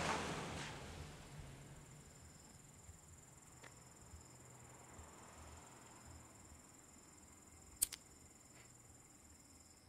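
A car pulling away fades out over the first second or two, leaving crickets chirring steadily. About eight seconds in, a lighter clicks twice in quick succession as a cigarette is lit.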